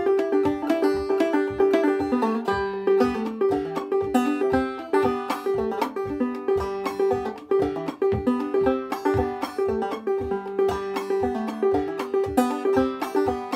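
Open-back banjo played clawhammer style in G: a quick, rhythmic run of plucked and brushed notes, with the same high drone note struck again and again between the melody notes.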